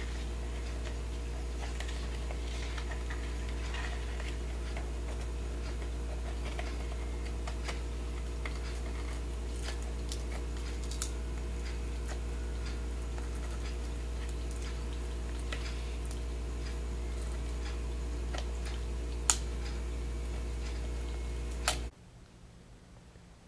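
Sparse, irregular sharp clicks and taps of a crab's claws and legs on a plastic bowl and on the potato chips it is picking at, over a steady low electrical hum. One louder click comes about 19 seconds in, and the hum cuts off near the end.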